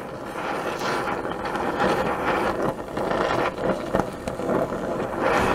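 Gas torch flame hissing steadily while silver solder is melted onto a nut, with a few faint crackles.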